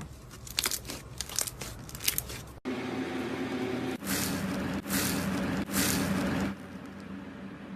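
Slime being squeezed and handled, crackling in quick sharp clicks. About two and a half seconds in, the sound cuts abruptly to another clip: a steady low hum with a few longer squishing rushes over it.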